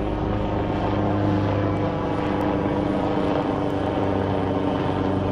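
Military helicopter flying past overhead: a steady rotor and engine drone with a low hum and a higher tone over a rough rumble.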